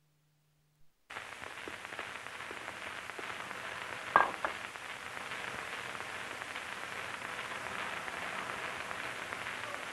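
Steady hiss of a quiet old film soundtrack on a TV channel, cutting in after about a second of silence as the channel changes. One short click comes about four seconds in.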